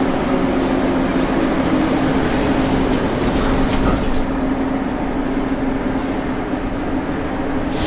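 Metro train running, heard from inside a passenger car: a steady rumble with a constant low hum and a few brief rattles and clicks around the middle.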